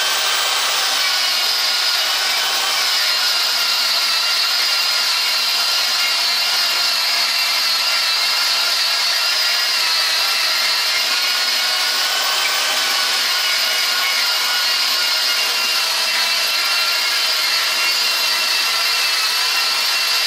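Handheld angle grinder running steadily against a rusted steel truck frame, a constant motor whine over the scraping of the disc on the metal.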